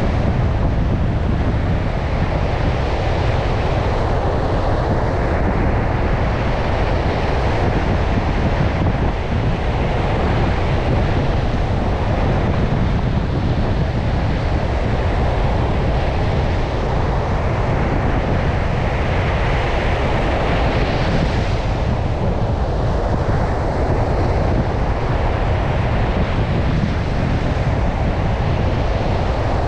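Stormy ocean surf breaking on a beach, with strong wind buffeting the microphone as a constant low rumble. The wash swells brighter as waves break about four seconds in and again about twenty seconds in.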